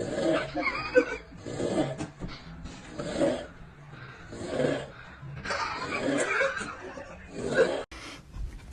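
Snoring in a steady rhythm, one loud breath about every one and a half seconds, breaking off abruptly near the end.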